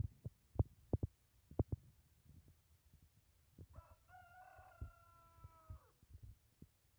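Scattered sharp taps and knocks, loudest in the first two seconds, then a rooster crowing once about three and a half seconds in: one long held note lasting about two seconds that falls slightly at the end.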